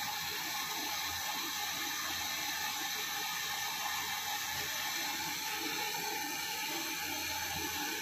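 Hand-held gas torch burning with a steady hiss as it heats a copper pipe joint for brazing.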